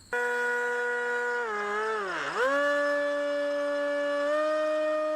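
Electric motor and propeller of an RC model aircraft whining at a steady pitch. The whine cuts in suddenly, dips low about two seconds in as the throttle is eased, comes back up, then steps higher near the end.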